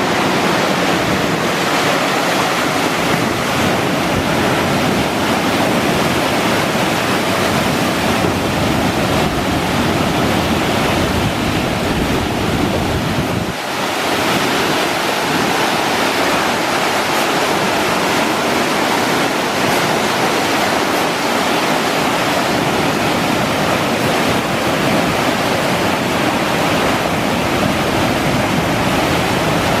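Steady rush of fast water from a mountain stream running high and swollen after a typhoon, with a brief dip in level about halfway through.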